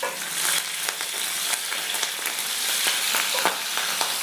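Green chillies and cumin seeds sizzling in hot oil in a kadai, with frequent crackling pops, as a wooden spatula stirs them.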